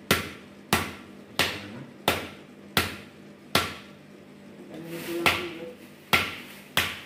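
A knife blade chopping down into a cow's foot bone resting on a wooden log, about nine sharp blows roughly every 0.7 s with a short break midway: the bone being split open to reach the marrow.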